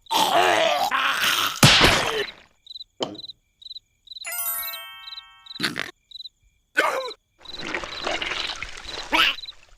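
Animated-cartoon soundtrack of sound effects and vocal noises in bursts, with a short bright musical sting about four seconds in. Under it runs a faint high chirping, about three times a second, like crickets.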